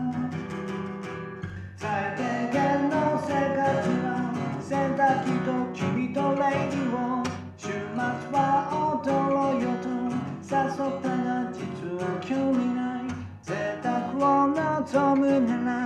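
Acoustic guitar played solo, strummed and picked in a rhythmic chord pattern as the song's instrumental intro.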